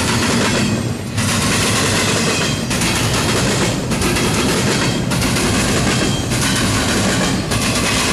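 Double-stack intermodal well cars rolling past at speed: a loud steady rumble and rattle of steel wheels on rail, with a clickety-clack rhythm and the high hiss dipping briefly about once a second.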